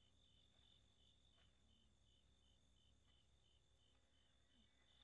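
Faint crickets chirping, an even pulse of about three chirps a second over a steady high trill.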